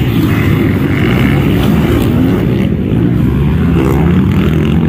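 Dirt-bike engines running on a motocross track, several overlapping at once, with their pitch rising and falling as the riders work the throttle.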